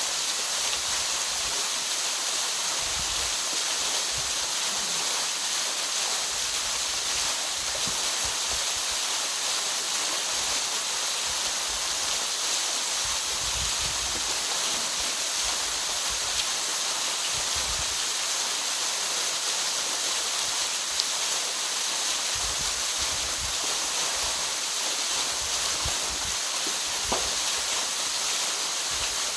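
Steady rushing water, an even hiss-like noise that holds at one level throughout, with occasional faint low rumbles underneath.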